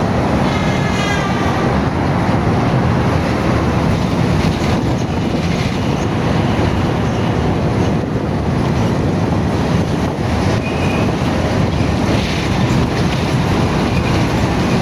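Steady loud din of a crowded street market, a dense rumbling noise, with a short wavering call rising over it about a second in.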